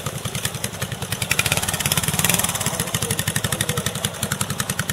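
Classic trials motorcycle engine running at low revs with a rapid, even beat as the bike is ridden slowly up a loose, rocky climb, picking up briefly about two seconds in.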